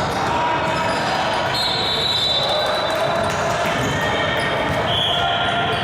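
Basketball game sounds in a gym: a ball bouncing on the court, with short high sneaker squeaks on the floor and a steady background of players and spectators.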